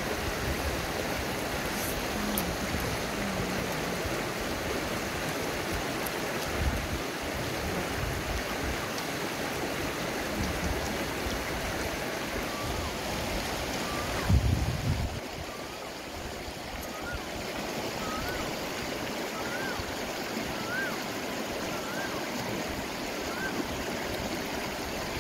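River water rushing over rocks in a steady wash. About halfway through comes a brief low thump, and after it a faint series of short high chirps.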